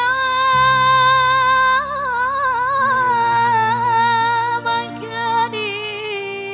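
A woman singing solo through a microphone in long held notes, her pitch wavering in ornaments in the middle, over steady low keyboard notes: live qasidah music.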